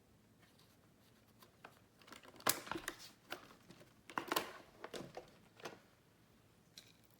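A quick, irregular series of short clicks and rustles, bunched between about two and six seconds in, with the loudest snap about two and a half seconds in.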